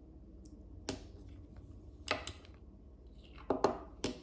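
A handful of short, sharp clicks and knocks from handling a small hard object. They are spaced irregularly and grow louder near the end.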